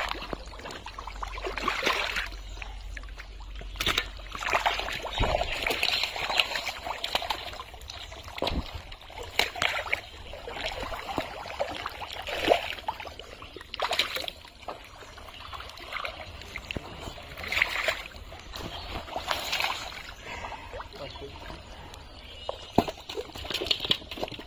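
Hands sloshing and squelching through thick, watery pond mud, with irregular wet splashes and a few sharp slaps.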